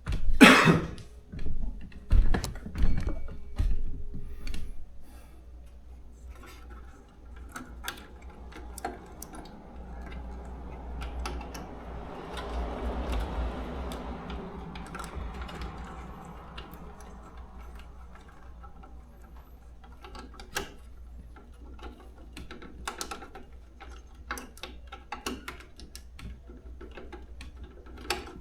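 Hand tools clattering and knocking, with a handful of loud knocks in the first four seconds. Then rustling and scattered light clicks of hand work with a screwdriver.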